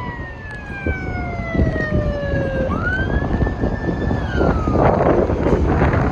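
A siren wailing: its pitch glides down, sweeps back up about two and a half seconds in, holds briefly and falls again, over heavy wind rumble on the microphone.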